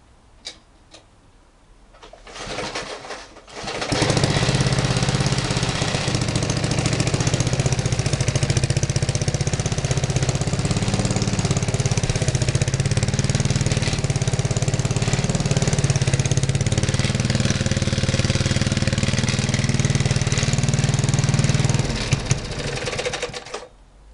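Petrol lawnmower engine starting with a brief sputter, then catching about four seconds in and running loud and steady before it drops and cuts out near the end. The engine doesn't run too well, and the owner says it needs a new exhaust.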